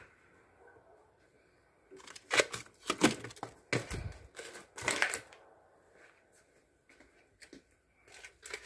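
Plastic-wrapped frozen food rustling and clunking as it is handled in a freezer: a cluster of sharp crinkles and knocks from about two to five seconds in, with a dull thump near four seconds.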